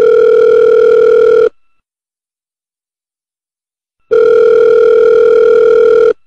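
Telephone ringback tone of an outgoing call waiting to be answered: a loud, steady single-pitched tone that stops about a second and a half in, then after a pause of about two and a half seconds sounds again for about two seconds.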